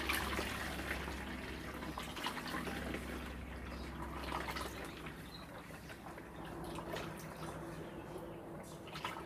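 Soapy water poured from an aluminium pot through a plastic funnel into a plastic sprayer bottle, trickling and splashing faintly as it fills.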